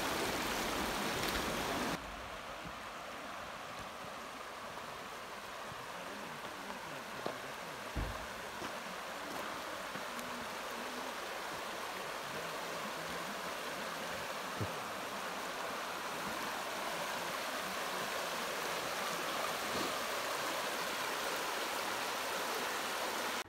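Shallow, fast-flowing creek rushing and splashing over rocks: a steady rush of water that drops a little in loudness about two seconds in, with a few faint knocks.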